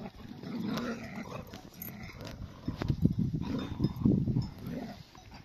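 Livestock guardian dogs making low growling noises in irregular bursts, busiest in the second half.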